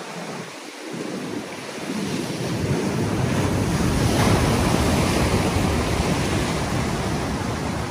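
Ocean swell surging and breaking over a rock ledge, building to a loud crash of surf about four seconds in and staying loud, with wind buffeting the microphone.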